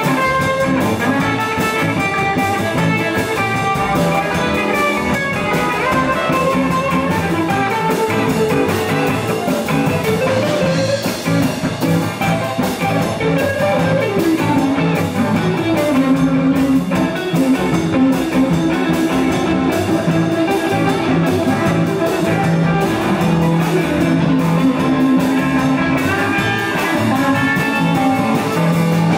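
Live blues band playing an instrumental passage: electric guitars over a steady drum kit beat.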